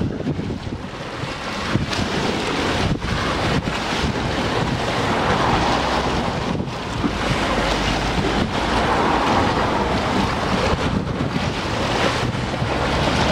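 Wind buffeting the camera microphone in a strong, gusty rumble over the wash of choppy water, swelling and easing a few times.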